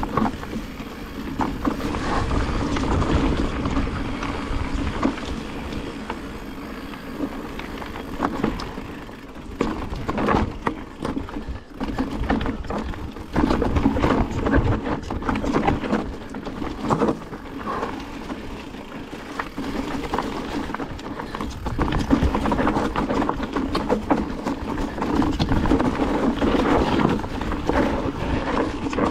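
Mountain bike rolling down a rocky singletrack: tyres grinding over loose stones and the bike rattling, with frequent knocks over bumps. The noise swells and eases in rougher and smoother stretches.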